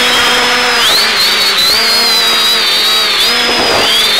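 Quadcopter's electric motors and propellers whining in flight, several close tones that dip and climb in pitch as the throttle changes, about a second in and again near the end.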